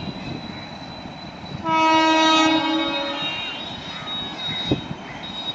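Indian Railways WAP-7 electric locomotive sounding one horn blast of about a second and a half, beginning near two seconds in, over the steady noise of a passing train.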